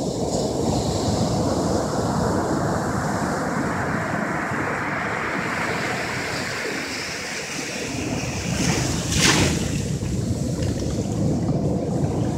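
Ocean surf breaking and foam washing up around a rock at the shoreline, a continuous rushing wash that swells and ebbs, with a brief sharper rush about nine seconds in. Wind is buffeting the microphone.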